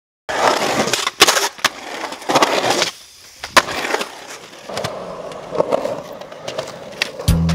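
Skateboard wheels rolling on a concrete skatepark surface, with several sharp clacks from the board. Music with a steady beat comes in near the end.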